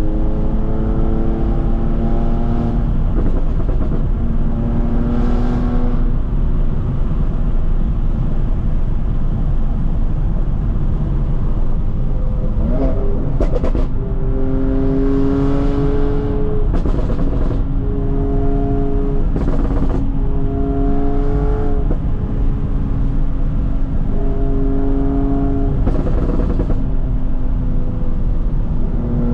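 BMW F80 M3's twin-turbo inline-six, through an M Performance exhaust with the secondary cats deleted (straight-piped), revving up through the gears in repeated pulls. Its pitch rises and then drops at each shift, with short sharp cracks at several of the gear changes.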